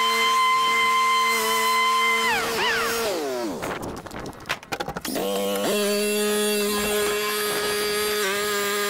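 Stand-on commercial lawn mower running at speed with a steady whine. About three seconds in it winds down in pitch, with a few knocks and clicks. Just after five seconds it revs back up to a steady whine.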